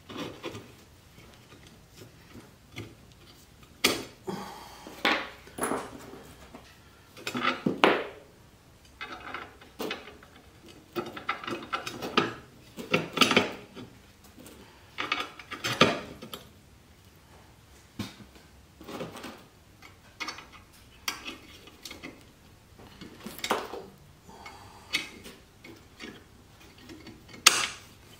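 Steel plates and hinge parts being shifted and set down on a workbench: irregular metal clanks, knocks and short scrapes, some loud, with pauses between.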